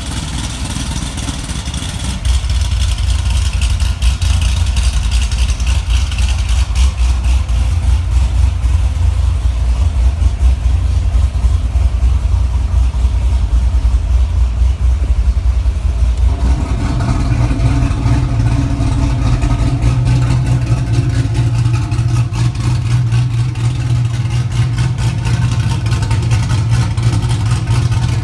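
Cammed 7.0 L LS7 V8 of a Corvette Z06 running steadily through a Kooks exhaust with dual-stage valves. About two-thirds of the way through, the exhaust note changes abruptly to a higher, more distinct drone, consistent with the exhaust valves being switched.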